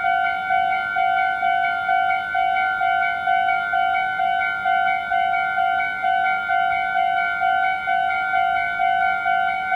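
Meitetsu level-crossing alarm ringing: an electronic bell repeating the same ding evenly, about twice a second.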